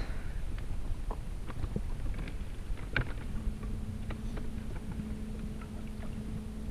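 Wind rumbling on the microphone with scattered small knocks from movement on a bass boat. About halfway in a steady low hum starts, typical of the boat's electric trolling motor running.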